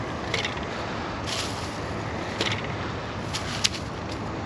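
Steady hum of highway traffic, with short dry rustles about once a second.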